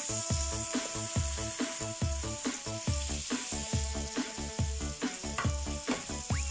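Flour-dredged fish fillets sizzling as they fry in butter in a pan, a steady hiss. Background music with a regular beat plays over it.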